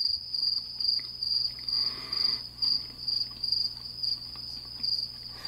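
Cricket chirping: a high, pulsing trill at about two pulses a second, which cuts off suddenly at the very end.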